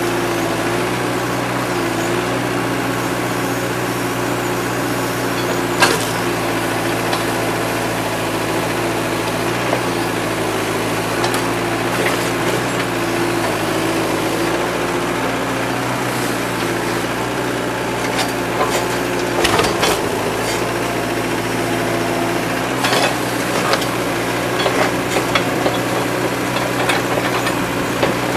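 Komatsu PC40-7 mini excavator's diesel engine running steadily, with wood cracking and debris clattering as its rake attachment tears into the house's framing. The sharpest snap comes about six seconds in, and bunches of cracks and knocks come around twenty seconds in and again near the end.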